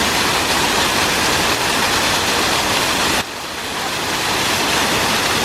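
Waterfall rushing: a steady wash of falling water close to the microphone. About three seconds in it drops abruptly in level, then builds back up.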